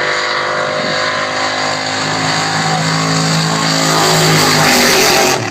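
JCB GT backhoe dragster's supercharged V8 engine running loud at a steady note, swelling louder in the last couple of seconds and then dropping off sharply just before the end.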